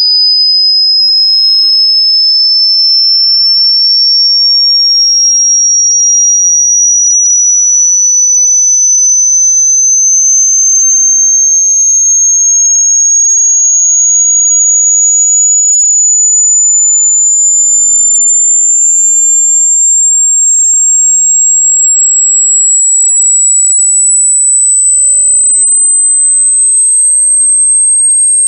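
A loud, very high-pitched pure electronic tone gliding slowly and steadily upward in pitch, a synthetic sine-wave sweep.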